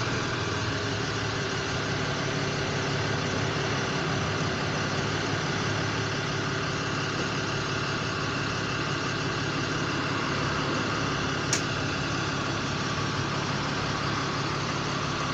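Motor vehicle engine idling steadily, with a single short click about eleven and a half seconds in.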